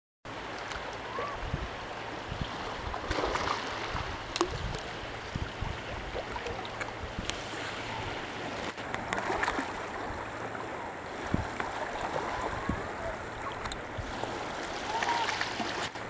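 Wind buffeting the microphone in short low thumps over a steady wash of gentle waves and trickling shallow water, with a few faint short chirps.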